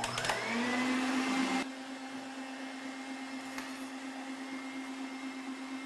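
Electric stand mixer with a wire whisk beating whole eggs: its motor spins up, rising in pitch over the first half second, then runs at a steady hum. About a second and a half in it drops to a quieter, even whirr.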